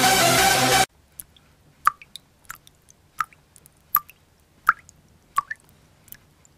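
Techno music that cuts off abruptly about a second in, followed by a slow, even series of small wet pops, about one every three quarters of a second.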